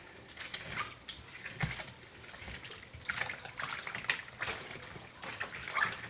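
Hands scrubbing soaked paper against the ridged washboard of a water-filled laundry tub, sloshing and splashing in irregular strokes as the paper is rubbed into pulp for papier-mâché. The strokes get louder and more frequent about halfway through.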